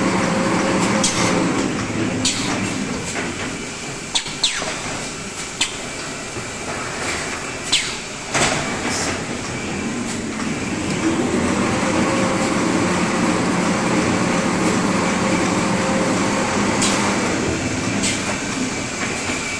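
1500 mm kitchen towel paper converting machine running: a steady mechanical hum of rollers and drive motors with a faint high whine, and several sharp clicks and knocks in the first half.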